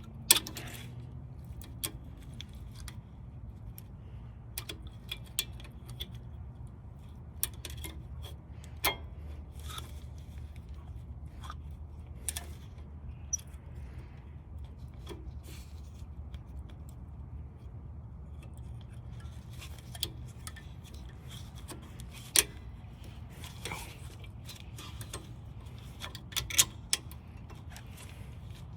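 Scattered metallic clicks and clinks of brake pads, hardware and hand tools being handled and fitted at a 2022 Toyota 4Runner's rear brake, over a steady low hum. A few sharper clinks stand out, one right at the start and several in the last third.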